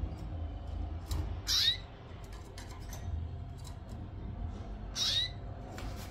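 Canary calling: two short calls about three and a half seconds apart, one about a second and a half in and one about five seconds in.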